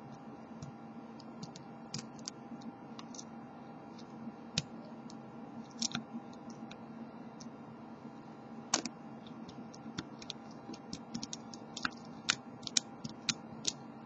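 Small, irregular metallic clicks and ticks of a lock pick and tension wrench working the pin tumblers of a brass deadbolt cylinder as the pins are lifted and set. The clicks come more often in the last few seconds.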